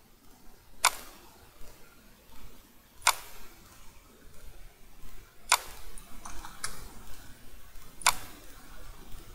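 Computer mouse clicking: four sharp single clicks about two and a half seconds apart, with a few fainter clicks between the third and the fourth.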